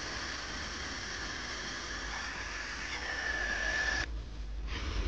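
Grinding machine cutting a groove for a circlip into the outer ring of a steel ball bearing: a steady hissing grind with a faint high whine that grows stronger, then stops abruptly about four seconds in, followed by a brief second burst.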